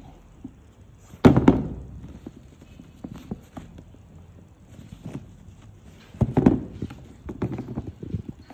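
Handling noise from a pair of Air Jordan 13 sneakers and their cardboard box: a loud hollow knock about a second in and another cluster of knocks about six seconds in, with lighter taps and rustles between as the shoes are turned over and set down.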